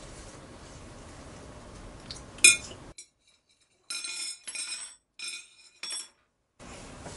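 Metal chopsticks clinking against plates and a dish tray. One sharp clink about two and a half seconds in is the loudest, and a cluster of shorter ringing clinks follows a second or so later.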